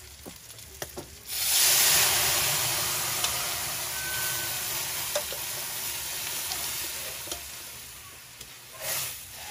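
A sudden loud sizzle from a hot steel wok about a second in, as wet ingredients hit the frying onion. It fades slowly over several seconds, while a spatula stirs and scrapes against the pan.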